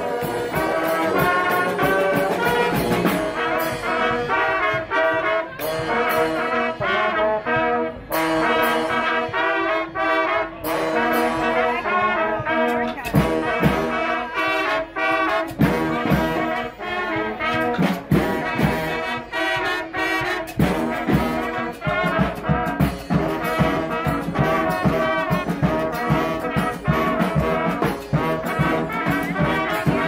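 Street brass band playing a tune: trumpets and trombones carrying the melody over steady drum hits.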